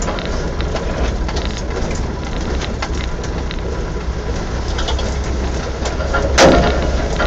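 Land Rover driving over a muddy, rutted track: a steady low rumble with scattered knocks and splatters, and one louder thump about six seconds in.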